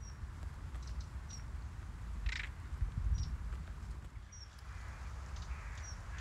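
Birds calling over a low wind rumble: short high chirps every one to two seconds, with one harsher call about two seconds in.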